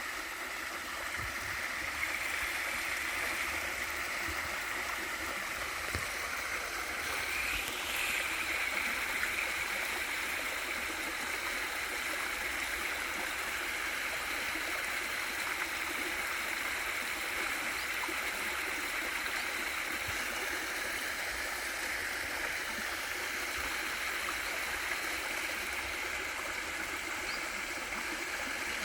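Valley stream water rushing and gurgling over a small waterfall, a steady, even rush.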